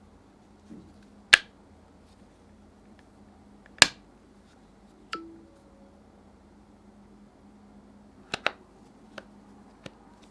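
Several sharp taps and clicks of a phone and its plastic accessories being handled and set down, irregularly spaced, with the two loudest in the first four seconds and a quick cluster of lighter clicks near the end.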